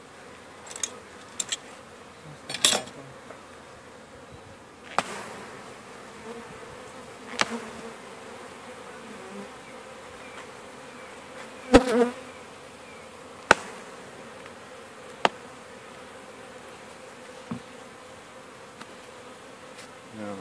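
Honeybees humming steadily over an open hive, with scattered sharp knocks and clicks of wooden frames being handled. The loudest knock comes about midway through.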